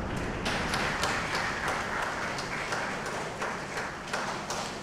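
A crowd applauding, starting about half a second in, in response to confirmed stage separation.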